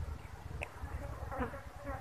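A kitten chewing dry cat kibble, with a sharp crunch about half a second in. Short chirping sounds come in the second half, over a low steady rumble.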